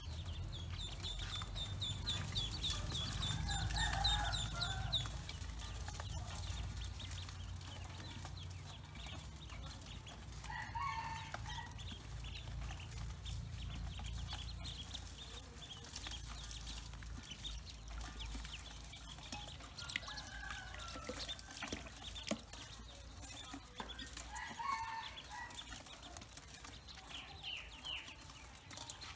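Pekin ducklings peeping: a quick run of short, high peeps over the first few seconds, then scattered peeps and calls.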